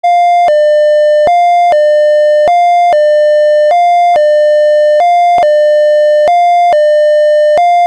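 Rauland Telecenter intercom's hi-low alert tone: two loud electronic tones alternating, a short higher note and then a longer lower one, about one high-low cycle every 1.25 seconds. This European-style two-tone siren is the alert that signals a weather warning.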